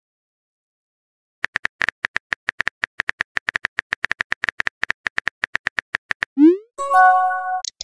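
Texting-app sound effects. After a silent second or so comes a rapid run of keyboard tap clicks, about eight a second, as a message is typed. Then a short rising swoop as the message sends, and a brief chiming tone.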